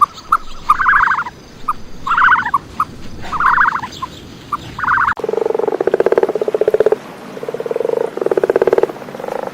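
Animal calls in two parts: first a run of short, high calls repeating about once a second with little chirps between them; then, after an abrupt change about five seconds in, a frog's rapidly pulsed, rattling croaks, each about a second long, repeated four times.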